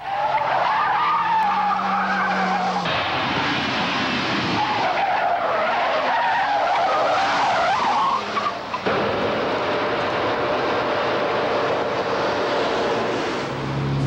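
Car tyres squealing as a car is driven hard through corners, a wavering whine over engine and road noise. About nine seconds in it gives way to a steadier car noise.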